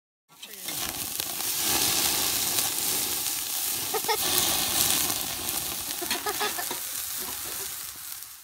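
Burgers and hot dogs sizzling on a charcoal grill: a steady, dense hiss of cooking fat, with a few clinks and scrapes of a metal spatula against the grate around the middle. It starts and stops abruptly.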